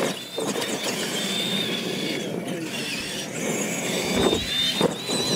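Radio-controlled monster trucks racing at full throttle, their electric motors and gearboxes whining high and sliding in pitch, with the rattle of the trucks over dirt and a couple of knocks near the end as they hit ramps or land.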